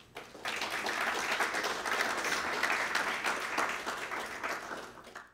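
Audience applauding, starting about half a second in and tailing off near the end.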